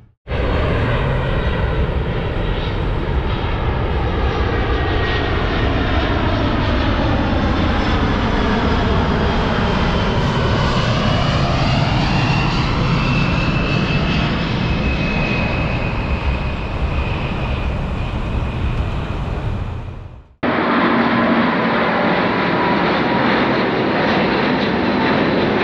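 A Boeing 747's four jet engines pass low overhead in a loud, steady rush, and their pitch sweeps downward as the aircraft goes by. About 20 seconds in, the sound cuts off abruptly and is replaced by a steadier stretch of jet noise with a faint steady whine.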